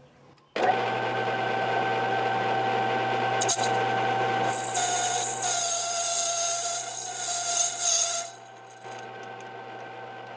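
A small Chinese 3-in-1 lathe-mill-drill switches on about half a second in and runs with a steady whine, while its turning tool cuts a Delrin plastic bar, with a high hiss from about four to eight seconds in. About eight seconds in it drops quieter to the machine running alone.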